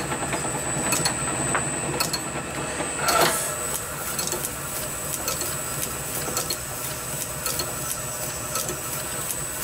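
A small metalworking lathe running, its spindle turning a brass flywheel blank with a steady mechanical hum, a constant high whine and light ticking. A tapered pin reamer is being fed into the blank's bore, with a brief louder swell about three seconds in.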